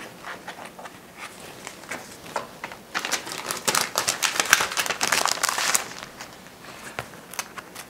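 Packaging crinkling and rustling as a pad of sticky notes is opened. Scattered light paper-handling clicks lead into a dense stretch of crackling from about three seconds in until nearly six seconds.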